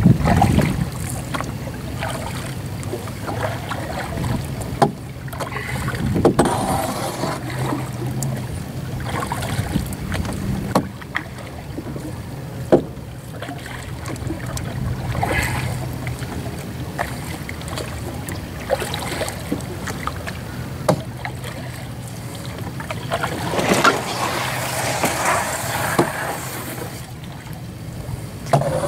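A double-bladed paddle stroking through calm water beside a plastic canoe, with splashes and drips that swell every couple of seconds. A few sharp knocks stand out now and then.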